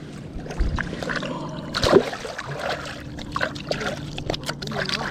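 Water trickling and splashing, with scattered knocks and clatter and a louder knock about two seconds in, over a steady low hum.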